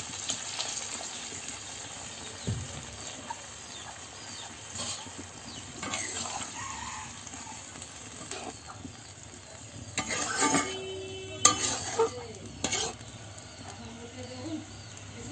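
Watery vegetable curry bubbling and hissing in a kadai while a metal spatula stirs it, scraping and knocking against the pan, loudest about two-thirds of the way through.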